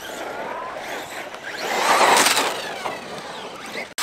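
Electric RC car motor whining, its pitch rising and falling as the car is throttled over the dirt, with a louder surge of motor and tyre noise about two seconds in; the sound cuts off suddenly near the end.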